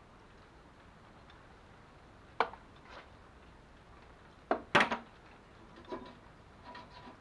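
Metal hand tools clinking in a plastic socket set case as a socket or ratchet is put down and another taken out: one sharp clink about two and a half seconds in, two louder ones in quick succession near the middle, then lighter clinks with a faint ring.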